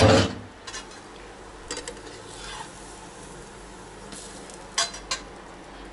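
A spatula scraping and tapping against a frying pan in a few short strokes as a paratha is turned, the loudest strokes about four to five seconds in, over a faint steady frying sizzle.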